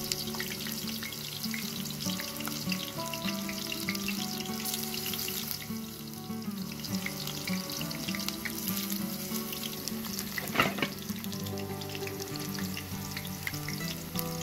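Eggplant slices sizzling and crackling in hot oil in a shallow iron pan, over background music. About ten seconds in there is a brief louder burst of sizzle as another slice is laid into the oil.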